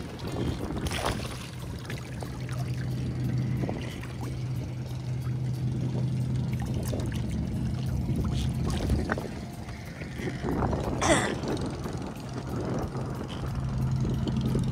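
An engine runs with a steady low hum that fades briefly twice, under water sloshing and scattered knocks. About eleven seconds in there is a louder splash.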